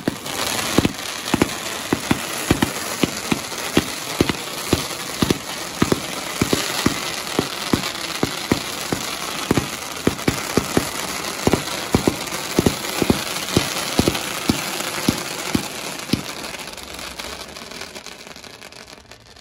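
Consumer fireworks cake firing a rapid series of shots, a few a second, over a dense crackling hiss from crackling stars; the barrage dies away near the end.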